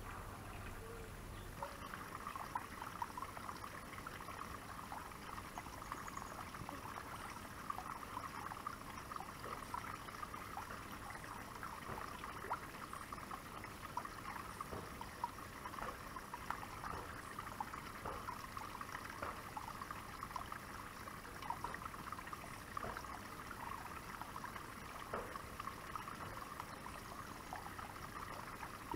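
Small garden waterfall trickling and splashing steadily into a koi pond, starting about two seconds in.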